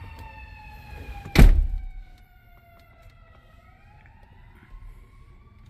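A siren wailing, its pitch sliding slowly down and then back up. A single loud thud lands about one and a half seconds in.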